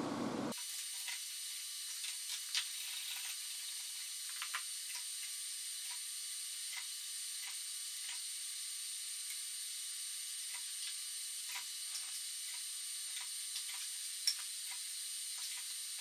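Hand-pumped hydraulic bottle jack loading a steel tensile specimen: irregular light clicks and ticks over a steady thin hiss, with one sharper click near the end.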